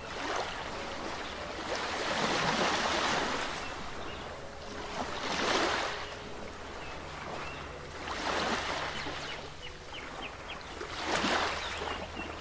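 Surf washing on a shore, the hiss of each wave swelling and falling away about every three seconds, over a faint steady low hum. A few short high chirps sound around the middle.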